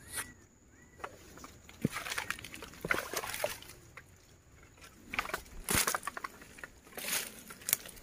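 Irregular rustling and sloshing: someone moving through wet undergrowth, mud and shallow stream water, with scattered small clicks and snaps.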